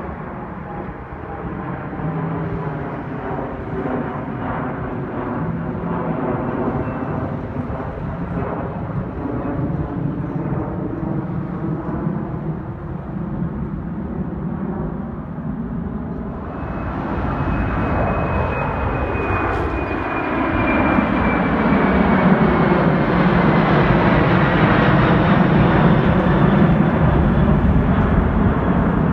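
Jet airliners taking off overhead. First a twin rear-engined regional jet's engine noise, with a rolling, sweeping tone as it climbs past. About halfway through, a louder four-engine Boeing 747 takes over: a heavy low rumble with a high fan whine that slides down in pitch as it passes.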